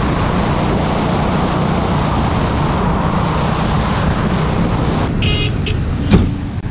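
Motorcycle riding at road speed: steady engine rumble with wind and road noise. About five seconds in the rumble falls away, and a brief high-pitched tone and a sharp click follow.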